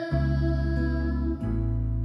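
Instrumental accompaniment to a children's song with no singing: a steady bass and held chords. The harmony changes about one and a half seconds in.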